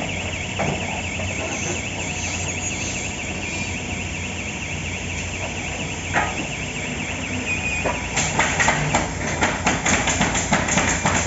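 Stringer pallet nailing machine running with a steady mechanical hum, a warbling warning tone for the first few seconds and a few single knocks. About eight seconds in it starts firing nails in a rapid, loud series of sharp shots.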